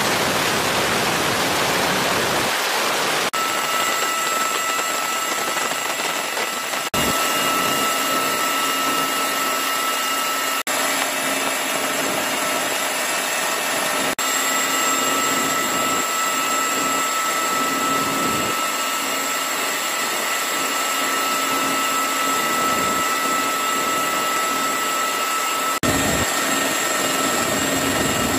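Steady aircraft engine noise heard from on board the aircraft: a constant rushing noise with several steady high whining tones, briefly broken where the footage is cut.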